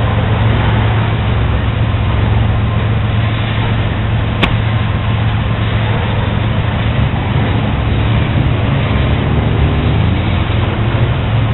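CSX double-stack intermodal container train rolling past: a steady rumble and rattle of the cars' wheels on the rails, with one sharp click about four and a half seconds in.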